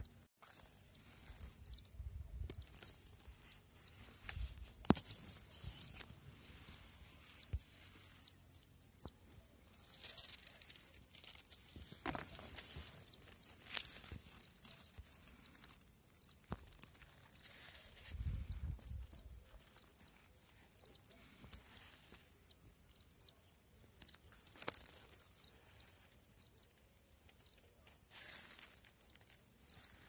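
Crested lark nestlings begging in the nest: thin, high cheeps, each a short falling note, repeated again and again. A few low bumps and clicks from handling come in between.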